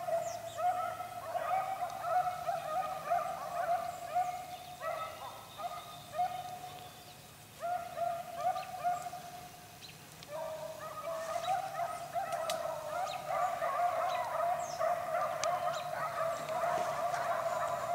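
A pack of beagles baying as they run a rabbit's track, several voices overlapping in a continuous chorus. The baying drops out briefly a few times, then grows louder and fuller in the second half as the pack comes closer.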